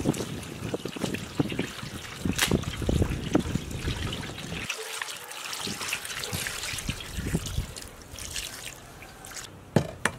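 Water trickling from a clay jug onto cow tripe in a metal colander, with hands squelching and rubbing the tripe as it is washed. A sharp knock near the end.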